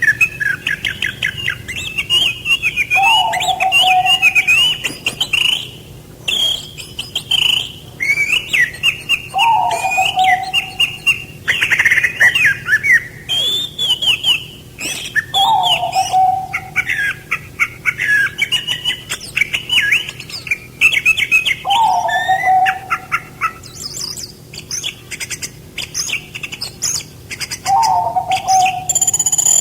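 Several songbirds chirping and trilling rapidly and without pause. A lower, falling call from another bird comes back about every six seconds.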